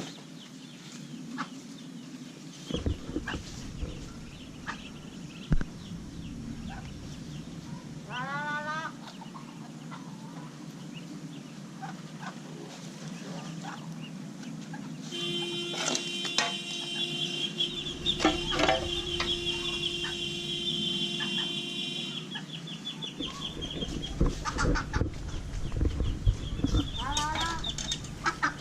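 Fowl calling, with scattered short peeping calls and clucks. For about seven seconds in the middle, a steady hum with higher ringing tones sounds over them, starting and stopping abruptly.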